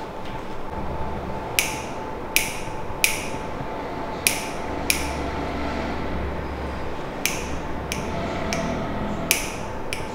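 Sharp snaps and cracks from a massage session, about nine of them at irregular intervals, over a steady background hum.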